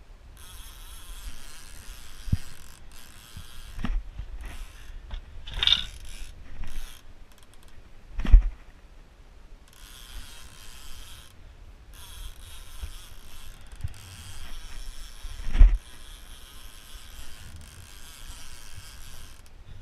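Electric downrigger lowering its weight, the cable paying out off the spool with a mechanical run that stops and starts. A few sharp knocks cut through it, the loudest about eight and fifteen seconds in.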